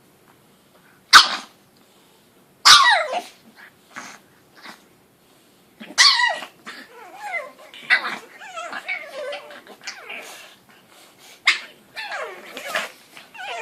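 Two pug puppies at play, giving short high-pitched barks and yips and whiny, wavering cries that sound cat-like, with some growling. A few sharp barks stand apart in the first six seconds, then the cries run on almost without a break.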